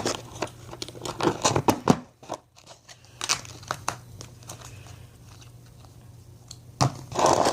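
Hands squishing and stretching slime: a run of small sticky clicks and pops, thinning out midway, with a louder rustle near the end.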